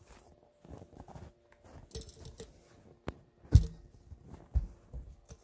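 Metal hooks and chain clinking and jingling as the load lashing on a firewood sled is handled, with a sharp click and a couple of dull thumps.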